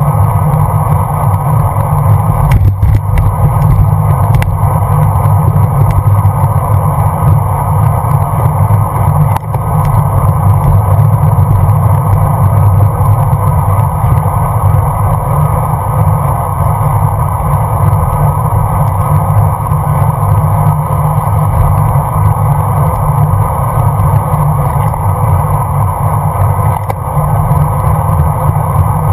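Steady wind rush and road noise on a bicycle-mounted GoPro riding along at speed, heaviest in the low end. A few short knocks or rattles come in the first ten seconds.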